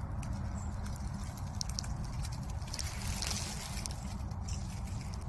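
Low steady outdoor rumble with a few faint ticks and rustles.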